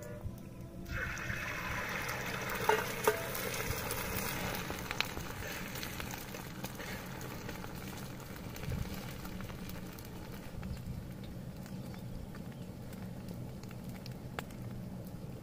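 Beaten egg poured onto hot oil in a flat iron griddle over a wood fire, sizzling. The sizzle starts about a second in, is loudest at first, then slowly settles to a quieter steady frying hiss. There are a couple of light metal clinks a few seconds in.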